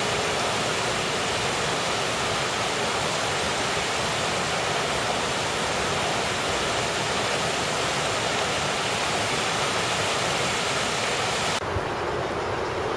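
Water rushing over a low concrete weir: a steady, dense hiss that cuts off suddenly near the end, giving way to a lower, duller rush.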